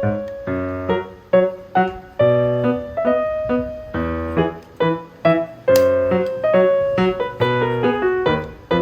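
Instrumental keyboard music: a piano-like melody over chords, its notes struck and quickly dying away.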